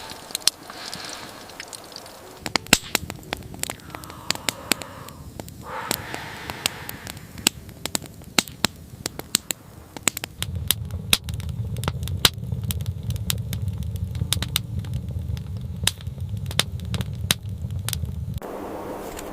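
Wood fire crackling in a stove, with irregular sharp pops and cracks. A low steady rumble joins about halfway through and cuts off suddenly near the end.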